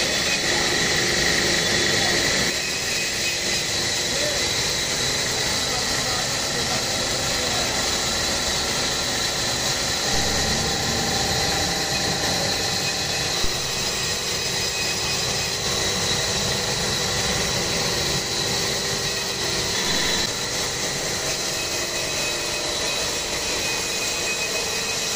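Woodworking machinery running steadily, with a constant high whine over an even noise.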